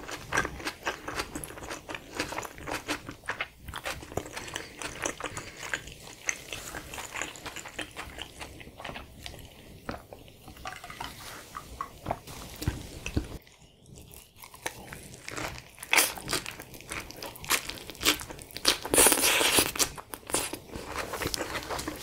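Close-miked chewing of a spicy chicken wrap, breaded chicken and lettuce in a flour tortilla, full of small clicks and mouth sounds. There is a brief lull about halfway through and a louder, denser stretch near the end.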